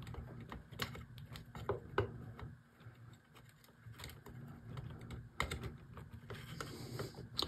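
Scattered light clicks and taps of small hand work on wire: LED leads and a copper wire being handled and touched with a soldering iron tip while soldering, over a faint low hum.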